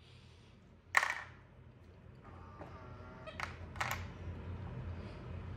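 Sharp clicks and knocks from a stainless-steel refrigerator's door and ice-and-water dispenser as a pet monkey handles them. There is one loud click about a second in and two more a little past the middle, over a low hum that comes up after about two seconds.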